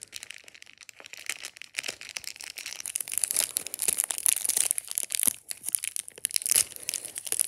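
Thin clear plastic packaging bag crinkling and crackling irregularly as hands work a small collectible figure out of it, busier from about two seconds in.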